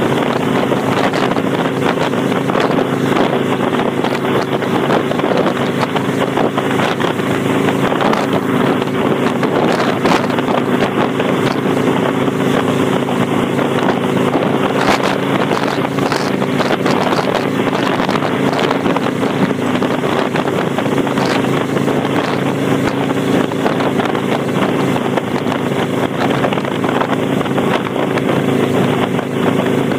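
Kawasaki Vulcan 800's V-twin engine running at a steady speed through Vance & Hines Straight Shots pipes with the baffle plug removed, under heavy wind noise on the microphone.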